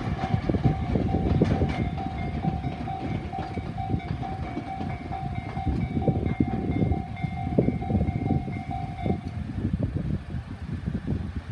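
A train rumbles and clatters over a railway level crossing while the crossing's electronic warning bell rings steadily. The bell stops about nine seconds in, the sign that the train has cleared the crossing, and the train noise then fades.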